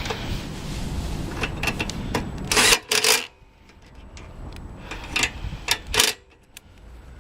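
Hand tools and metal carburetor parts being handled while the carburetor is refitted to a Briggs & Stratton 190cc mower engine. A rubbing, rustling handling noise gives way to a series of sharp, irregular metallic clicks and clacks, the loudest about three seconds in.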